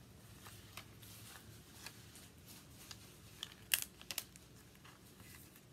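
Quiet handling of paper and stickers on a tabletop: soft rustles and light ticks, with a few sharp clicks a little under four seconds in and just after four seconds.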